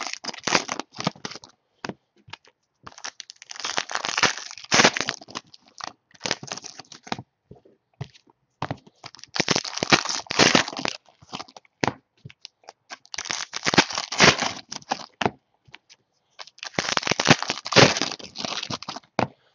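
Foil trading-card pack wrappers being torn open and crinkled by hand, in several bursts of crackling with short pauses between.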